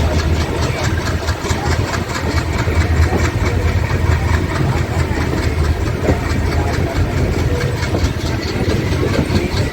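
ALCO diesel locomotive engine running with a steady low rumble.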